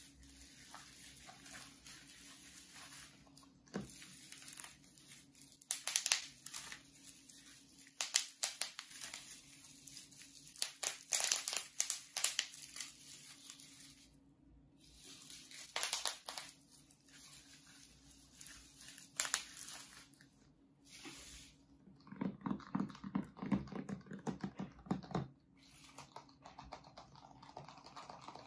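Bubble wrap crinkling and rustling as it is pulled off a boxed laptop, with many sharp crackles through the first two-thirds. Near the end a duller, lower rustling as the freed cardboard box is handled.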